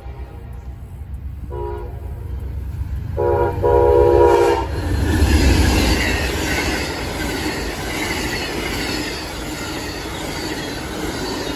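Amtrak GE P42DC diesel locomotive's air horn sounds a short blast and then a longer one as it nears. The locomotive then passes loudly, followed by a train of passenger cars rolling by with steady wheel clatter and rushing rail noise.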